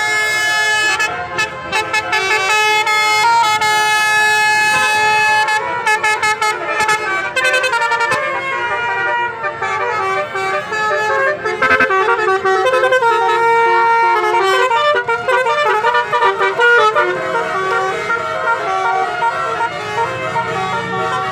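Multi-tone 'basuri' telolet bus horn playing a tune: a long string of loud horn notes that step up and down in pitch, several tones sounding together.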